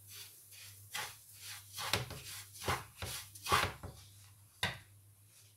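Wooden spoon stirring and scraping semolina through hot ghee in a non-stick frying pan: a run of short scraping strokes, a little under two a second, stopping about a second before the end.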